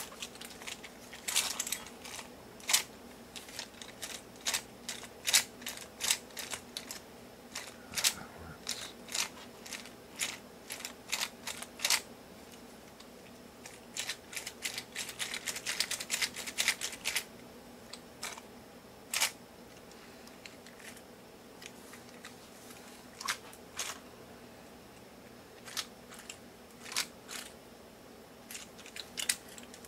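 3D-printed plastic Osprey prosthetic hand being worked by flexing its wrist, its plastic fingers and hinges clicking and clacking irregularly as the fingers close into a grip and open again. The clicks come thick and fast about halfway through and sparser toward the end.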